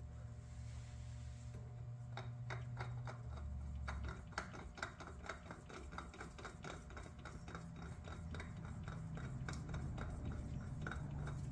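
Spin-on oil filter being threaded onto its mount by hand with nitrile-gloved fingers: a run of small irregular clicks and rubbing, several a second, starting about two seconds in, over a faint low hum.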